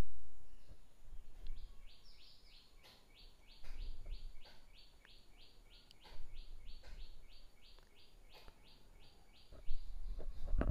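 A low rumble fades out over the first two seconds. A small animal then chirps in a rapid, even series of short falling notes, about three a second, stopping near the end, with a few faint knocks in between.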